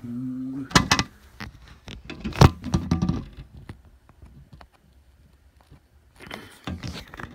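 A man's humming trails off about half a second in. Then comes handling noise as the camera is grabbed: knocks and clicks, loudest about a second in and at two and a half seconds, with a rustle near the end.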